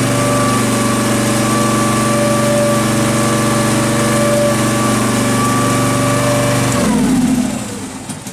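Case 446 garden tractor's engine running at a steady speed, then shut off about seven seconds in, its pitch falling as it winds down to a stop.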